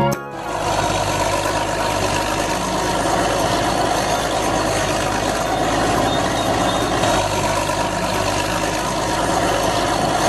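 A vehicle engine running steadily, a continuous even drone with a low hum.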